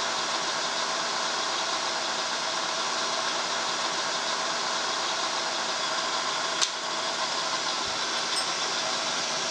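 Vertical milling machine spindle running steadily while a small drill bit is power-fed down into an aluminium casing: a steady machine whir with faint steady tones. A single short click about two-thirds of the way through.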